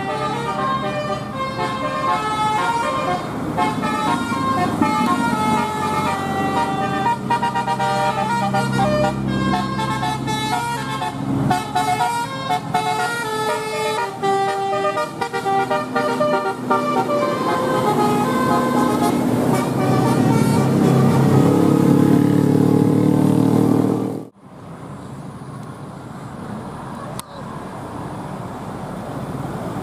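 Bus telolet horn, a multi-tone musical horn, playing a quick melody of short stepped notes that give way to longer held chords. It cuts off suddenly about 24 seconds in, leaving quieter road noise.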